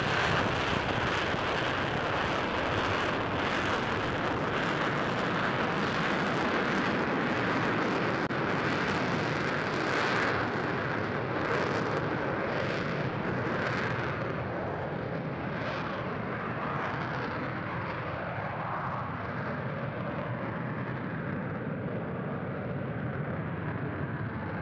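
Lockheed Martin F-35B Lightning's F135 turbofan with its lift fan engaged (lift-fan door open, rear nozzle swivelled down), giving a loud jet roar. The roar slowly fades as the jet draws away, its hiss thinning out after about ten seconds, with a few brief surges in between.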